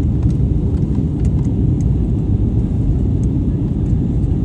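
Steady low rumble inside a passenger airliner's cabin: engine and airflow noise.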